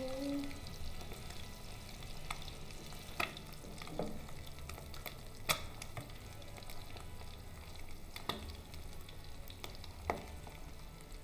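An egg frying in hot oil in a pan, with a steady sizzle. A few sharp clicks stand out, spread through the sizzle.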